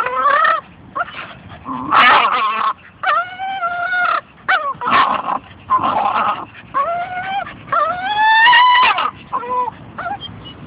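Staffordshire bull terrier whining and yelping: a string of high whines, several drawn out and rising in pitch, with short yips between them.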